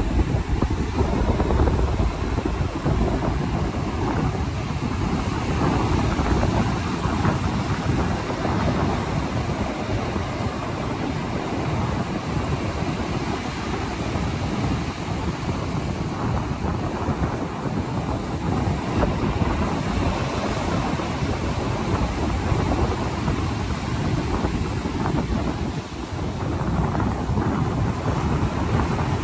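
Atlantic surf breaking and washing up a sandy beach, a steady rushing noise, with wind buffeting the microphone.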